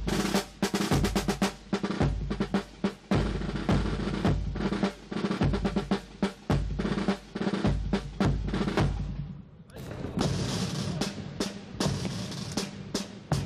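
Drumming: rapid snare-drum rolls over bass-drum beats. It thins out briefly about nine seconds in, then picks up again.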